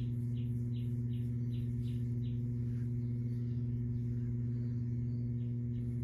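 A steady low hum with several overtones, under soft regular ticks about three a second for the first two seconds and again near the end.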